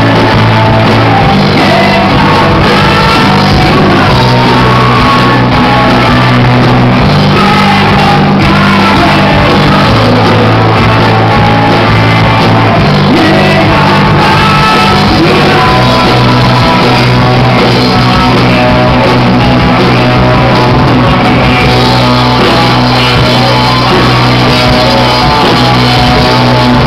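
Live rock band playing: electric guitars, bass, keyboard and drums under a lead singer's voice, with heavy held bass notes that change every few seconds. The recording is loud and distorted, its level pinned near overload.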